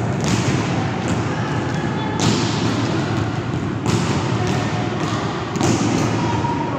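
A volleyball being hit during a rally: four sharp slaps of hands and forearms on the ball, roughly every one and a half to two seconds, each echoing in a large gym hall.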